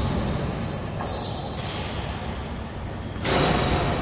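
Indoor basketball game under way in a large hall: a steady low rumble of court noise, with a brief high hiss about a second in and a louder rush of noise about three seconds in.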